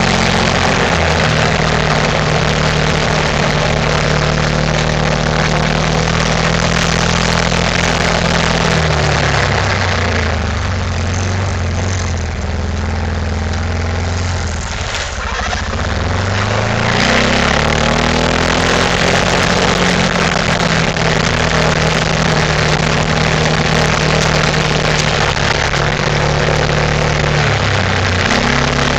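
ATV engine running under way over a loud rushing noise. Its pitch drops about a third of the way in as it slows, stays low for several seconds while the rushing noise fades, then climbs again as it speeds back up, with a short dip near the end.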